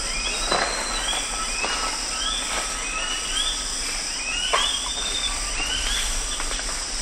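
Capuchin and squirrel monkeys feeding in rainforest foliage, with intermittent sharp crackles and rustles. Over them run short, high chirping calls about twice a second and a steady high insect buzz.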